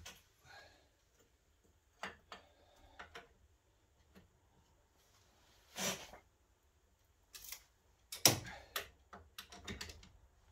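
Scattered clicks and light metal knocks of a spanner working on a car's front hub and suspension, with a sharper knock about eight seconds in followed by a cluster of quick clicks.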